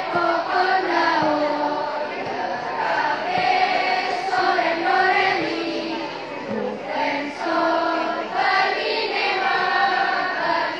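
A school choir of young students singing together, moving through phrases of held notes.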